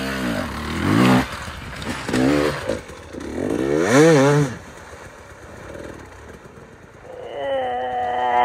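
Enduro dirt bike engine revving in repeated bursts, its pitch rising and falling with each twist of the throttle as it climbs a wet rock channel.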